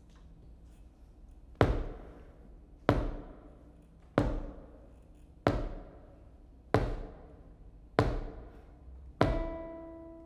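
Slow, steady percussive knocks, seven of them about one every 1.3 seconds, each ringing out briefly. With the last knock, a guitar chord starts to ring.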